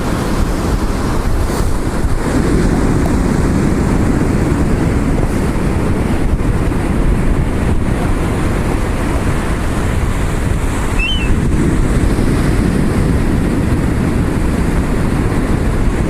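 Steady wind noise buffeting the microphone, with surf washing on the beach.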